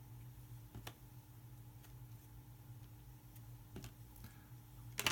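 A few faint, irregular clicks as trading cards are handled and set down, over a low steady hum.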